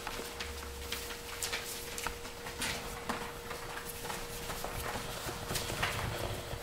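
Five-week-old Pointer puppies scampering and tussling over toys: an irregular patter of small claws and paws clicking and scuffing on the paper-covered floor.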